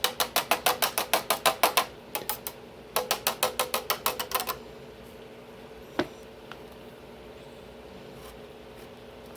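Kitchen knife chopping carrots on a cutting board in quick, even strokes, about seven a second, in two runs of a second or two each, then a single knock about six seconds in.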